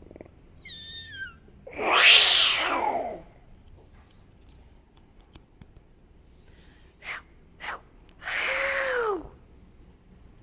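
Vocal sound-effect imitations by a beatboxer: a short stepped whistle falling in pitch, then a loud breathy cat-like cry sliding downward. Two short clicks follow, then a second breathy cry ending in a falling tone.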